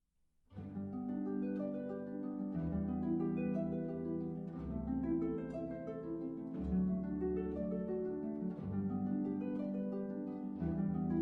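Background music: plucked strings, harp-like, in a slow repeating pattern of notes over a low bass, starting about half a second in.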